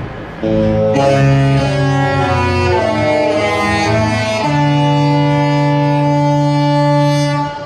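Disney cruise ship's musical horn sounding a short tune. It starts suddenly, changes chord several times, then holds one long chord that cuts off near the end.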